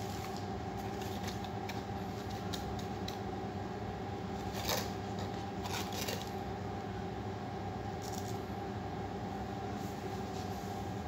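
Cardboard mug packaging being handled and opened: scattered rustles and taps, with the loudest scrapes about four and a half seconds and six seconds in, over a steady low hum.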